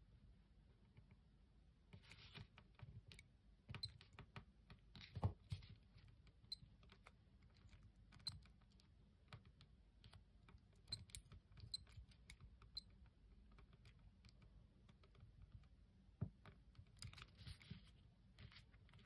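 Small pushbuttons on a Mantaray 5811-73 digital watch clicking faintly as its modes are stepped through. Several presses are answered by a short, high electronic beep from the watch.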